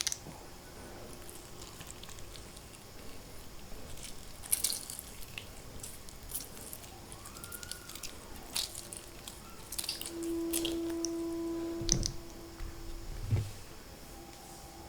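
Close-up wet eating sounds of rice and spicy egg curry: scattered squishes, smacks and sharp little clicks of mouth and food. A steady hum is heard for about two seconds a little past the middle.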